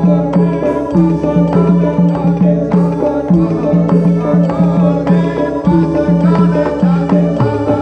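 Javanese traditional troupe music: hand drums and struck, pitched percussion playing a fast, repeating rhythmic pattern.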